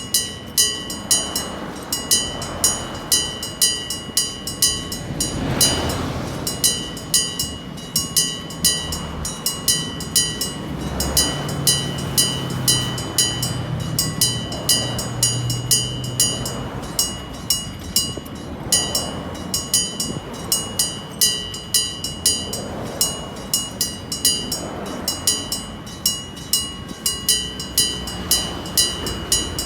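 Bell-striking railway crossing signal: a mechanical bell struck about twice a second, evenly and without a break, each strike ringing on. Passing vehicles swell and fade beneath it several times.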